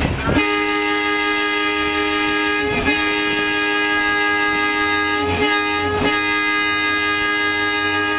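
Electric interurban car's horn blowing the grade-crossing signal, heard from inside the cab: a steady single-pitched horn in a long, long, short, long pattern, the last long blast still sounding at the end.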